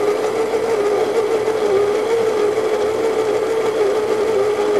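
Baratza Virtuoso conical burr grinder running steadily, its motor humming at a steady pitch as it grinds coffee beans into a portafilter.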